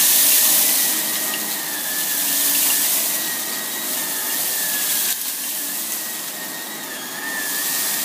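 Shark Navigator Lift-Away Pro upright vacuum running with its roller brush on, pushed back and forth over carpet to pick up ground-in sand, cat litter, rice and hair: a loud rush of air with a steady high motor whine, swelling and easing with the strokes.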